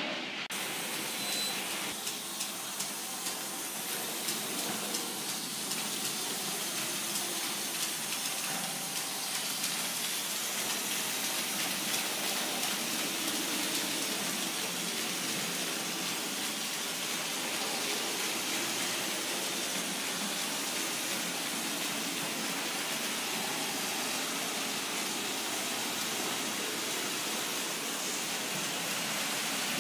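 Model freight train running along the track behind a Märklin BR 44 steam locomotive: a steady, even rushing noise of wheels on rails and the running motors, with faint clicks.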